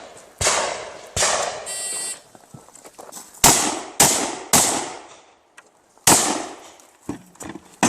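Shotgun shots in a practical shooting stage: six loud reports at irregular intervals, each trailing off in echo, with a brief ringing tone after the second shot and a few lighter clicks near the end.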